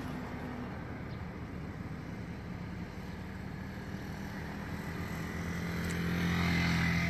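A vehicle engine runs steadily with a low hum, heard from inside the cabin. It swells louder about six seconds in, then eases off.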